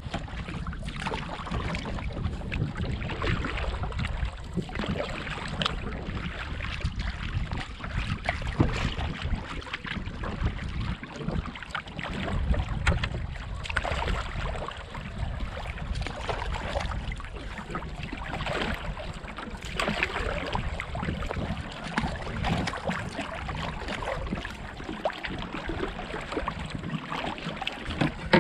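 Water splashing and lapping around a canoe as it is paddled with a wooden single-blade paddle, with wind rumbling on the microphone.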